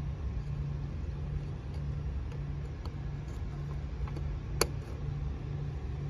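Steady low hum and rumble, with one sharp click about four and a half seconds in as wire terminals are pushed back onto the heat pump's run capacitor.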